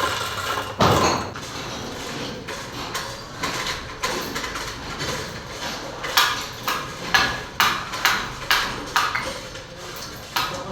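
A heavy thump about a second in, then a run of sharp knocks, about two a second, in the second half.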